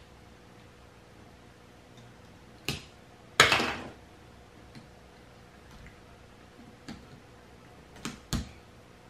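A few sharp, separate clicks and knocks as fingers and a small tool work loose a plastic connector on a Ninebot ES2 scooter's lithium battery pack. The loudest comes about three and a half seconds in, with a pair close together near the end.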